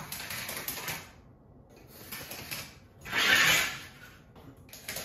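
Dry scraping strokes on a hexagon mosaic tile floor as a spirit level is slid into place on the tiles and a pencil line is marked along it; the loudest stroke comes about three seconds in.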